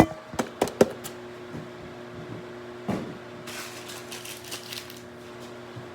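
Microwave oven running with a steady hum, heating a bowl of oatmeal. Several sharp knocks and clatter in the first second and another knock near three seconds, then rustling for a second or so.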